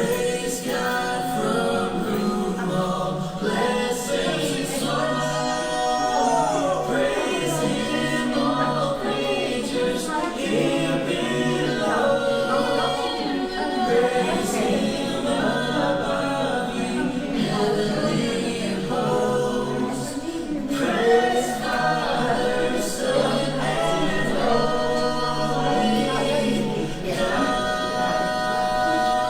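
Choir singing a hymn, several voices together.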